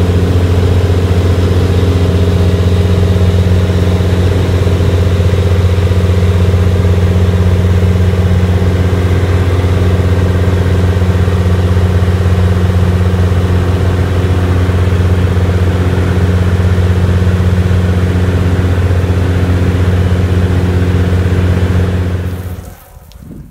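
Jabiru 170 light aircraft's four-cylinder air-cooled engine and propeller droning steadily in cruise, heard inside the cockpit as a loud, even low hum. It cuts off abruptly near the end.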